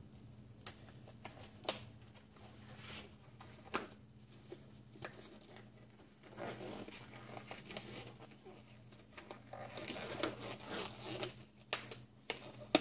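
Disposable gloves being pulled on: rustling handling with several sharp snaps, over a faint steady hum.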